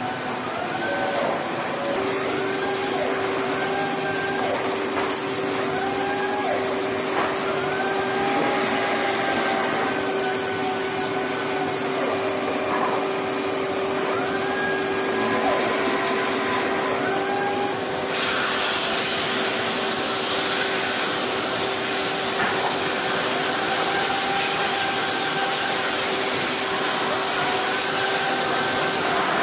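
Electric woodworking machines (sanders and a drill press) running steadily, with a constant hum and motor tones that dip and recover again and again as the wood is pressed into them. The sound changes abruptly about 2 and 18 seconds in.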